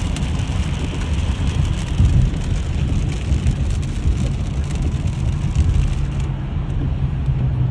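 Road noise heard from inside a car on a wet freeway in heavy rain: a steady low rumble of tyres on the road with a hiss of rain and spray on the car. The higher hiss drops away about six seconds in.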